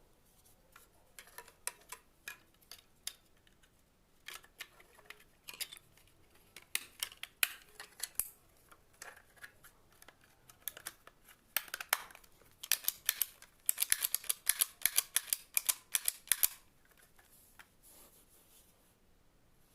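Sharp clicks and snips from hand work, scattered at first and then coming thick and fast for a few seconds before stopping.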